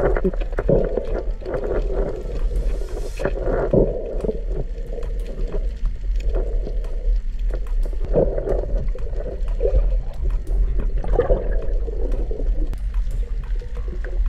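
Muffled underwater sound through an action camera's waterproof housing: water moving and gurgling past the camera over a steady low rumble, with irregular swells and light clicks.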